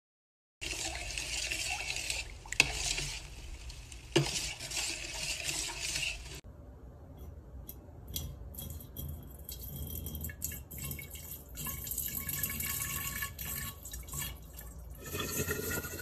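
Milky borax solution poured from a plastic jug into a large glass bottle, splashing and trickling with many small clicks, and a faint rising tone near the end. The first few seconds are a steadier hiss with two sharp knocks.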